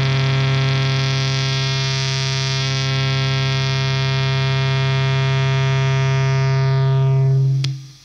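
Electric guitar, tuned well below standard and sustained by an EBow, holding one steady, distorted low note through an effects chain. Near the end its upper overtones fade away, and the note cuts off with a click, leaving a faint hum.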